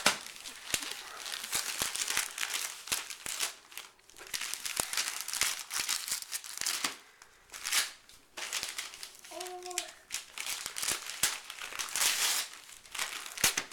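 Gift wrapping paper being torn and crumpled by hand in irregular bursts of rustling.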